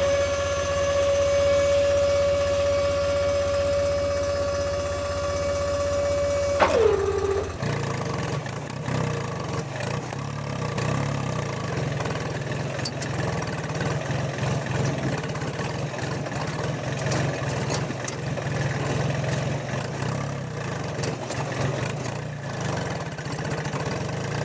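Small electric motor whining at a steady high pitch, dropping in pitch as it winds down about seven seconds in. It is followed by a rougher, rattling, engine-like running sound with a low hum.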